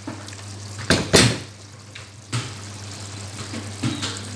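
A few sharp knocks and clatters, the loudest two about a second in, as chopped carrots are added to a wok of liver and chicken gizzards simmering in sauce, over a steady low background of the simmering pan.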